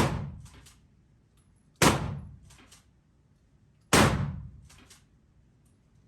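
Three rifle shots of .223 ammunition about two seconds apart, each a sharp report that dies away over about a second, with faint clicks after each.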